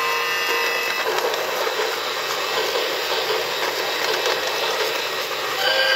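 The Lionel 100th Anniversary alarm clock's small toy train running round its plastic track loop, a steady whirring rattle of motor and wheels. Steady tones stop about a second in, and another set starts near the end.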